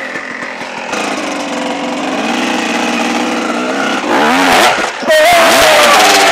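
Dirt bike engine revving, its pitch climbing steadily and then swinging up and down quickly, loudest near the end.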